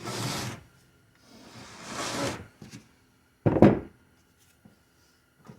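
Transmission parts being handled on a workbench: two scraping slides, then a heavy thunk about three and a half seconds in and a lighter knock at the end.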